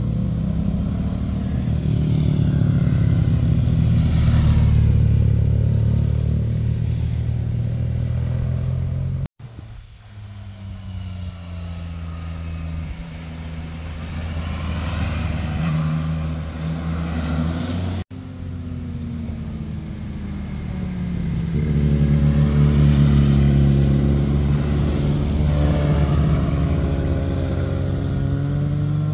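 Motorcycle engines heard from the roadside as bikes ride through a hairpin bend one after another, the engine note rising and falling with throttle and gear changes and swelling as each bike comes close. The sound cuts off abruptly twice between passes.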